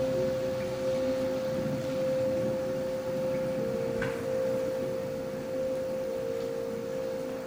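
A steady electronic drone of two close, pure tones held together, the lower one stepping up in pitch about halfway through, part of the dance's original score.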